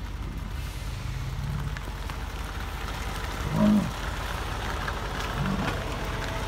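American bison herd passing close by, one animal giving a short low grunt a little over three and a half seconds in and a weaker one about two seconds later, over the steady hum of an idling car.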